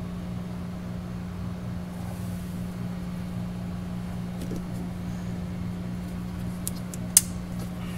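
A freshly crimped spark plug wire terminal snapping into place with one sharp click near the end, a sign of a solid connection. A few faint handling ticks come before it, over a steady low hum.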